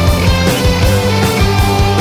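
Rock music without vocals: an electric guitar melody stepping down in pitch over steady drums and bass.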